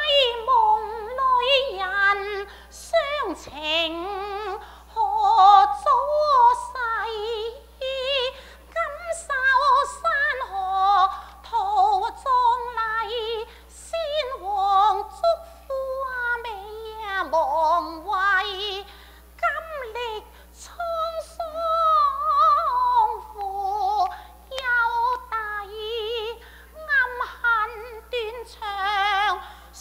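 Cantonese opera singing: a woman's high voice in long, sliding, melismatic phrases with heavy vibrato.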